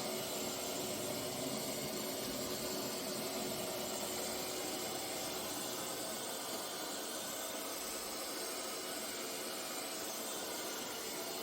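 eufy X10 Pro Omni robot vacuum running with a steady whirring hiss and a faint constant hum.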